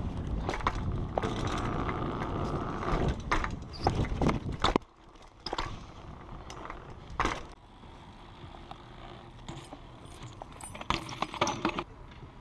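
BMX bike rolling over paving stones, the tyres rumbling and the bike rattling, with several sharp knocks a few seconds in. About five seconds in the rumble drops away and only scattered clicks and rattles remain.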